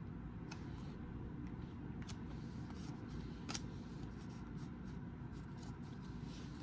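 Trading cards being handled and flipped through: faint sliding and a few light clicks, the clearest about halfway through, over a low steady room hum.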